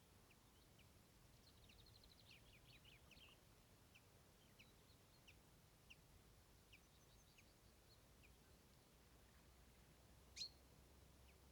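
Faint, sparse chirps and short calls of small birds, with a quick twittering run about two seconds in and one sharper, louder call near the end, over a quiet low background hum.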